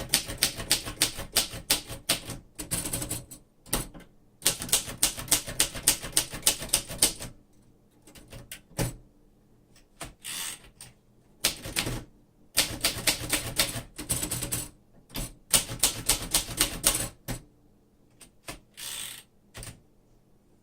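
Typing on a 1950 Royal Companion portable manual typewriter: rapid runs of key strikes, the typebars clacking against the platen, broken by short pauses and a few single strokes.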